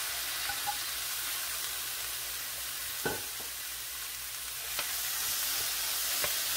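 Cubed raw chicken breast sizzling as it hits a hot nonstick frying pan: a steady frying hiss, with a few light clicks as the pieces are stirred with a spatula.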